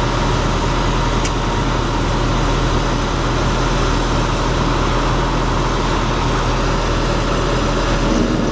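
A large engine running steadily, a loud even drone with a low hum: the fire engine running its pump to feed the charged hose lines.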